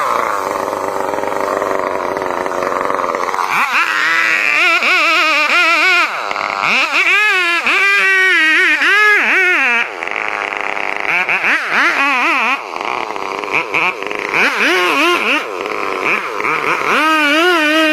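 Chainsaw running at high revs. After about three seconds its pitch keeps dipping and rising again as it bogs and recovers, typical of a saw cutting through wood.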